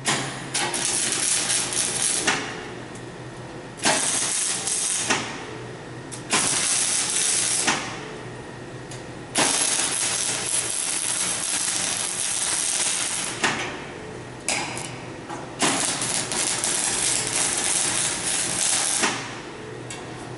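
Electric arc welding steel rebar to a stainless threaded rod: about six bursts of arc noise, each stopping and starting again, from under a second to about four seconds long, the longest near the middle.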